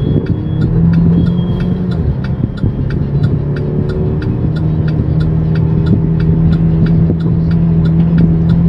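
Chevrolet Captiva Sport engine and road noise heard from inside the cabin while driving with the accelerator floored, a steady drone that does not climb in pitch. The SUV is down on power and won't rev past about 2500 rpm, which the mechanic suspects comes from poor fuel delivery to the high-pressure pump or a clogged exhaust.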